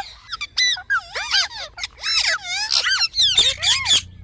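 Parrots squawking and chirping: a rapid string of short, sharp calls, many of them gliding up and down in pitch.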